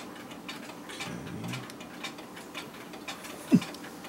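Screwdriver turning and tightening a screw in the brass plate of a clock movement: faint, irregular small clicks and scrapes of metal on metal. One short, loud squeak that falls in pitch comes about three and a half seconds in.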